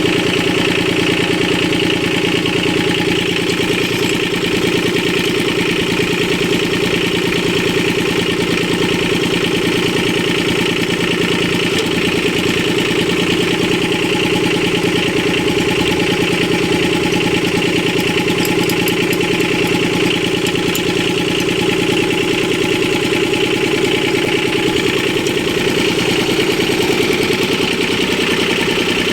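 Kubota B1500 compact tractor's diesel engine running steadily at idle.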